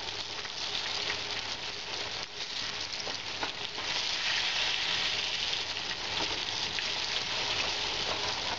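Breaded beef cutlets sizzling steadily as they shallow-fry in oil that is now hot enough for flash-frying, with a few light clicks of metal tongs against the pan.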